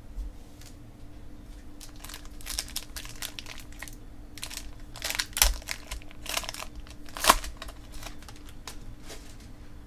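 Foil wrapper of a baseball card pack being torn open by hand and crinkling as the cards are slid out, in an irregular run of sharp crackles starting about two seconds in, the loudest about five and seven seconds in.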